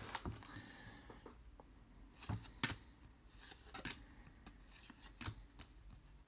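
Trading cards being handled and flipped through one by one in the hands, with quiet scattered clicks and soft rustles of card stock.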